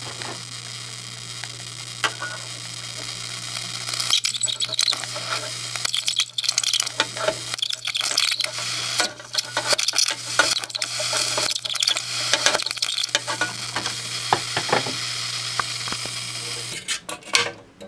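High-voltage arc from an RCA CTC28 color TV's flyback circuit drawn to a screwdriver tip, sizzling with many irregular sharp crackles and snaps, densest in the middle. It stops shortly before the end. A steady low hum runs underneath. The arc shows the voltage is high enough to burn right through the insulation.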